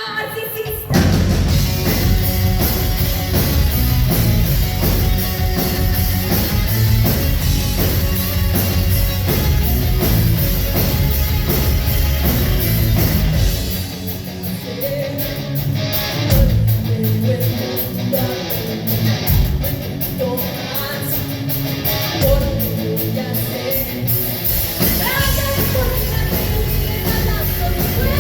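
Rock power trio playing live: electric guitar, bass guitar and drum kit with a female lead vocal. The full band comes in hard about a second in; around halfway the low end drops back under the singing, and the full band returns near the end.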